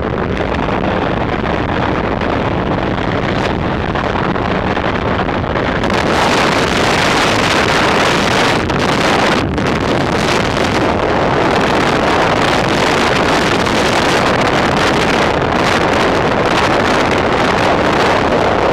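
Heavy wind buffeting the microphone over a speedboat's outboard motor running at high speed, about 55 mph. The wind noise grows fuller about six seconds in.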